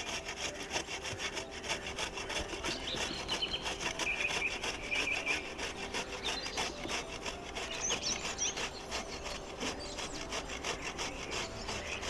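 Ash gourd being grated by hand on a flat stainless-steel grater: steady, rhythmic rasping strokes as the gourd is rubbed back and forth over the metal teeth.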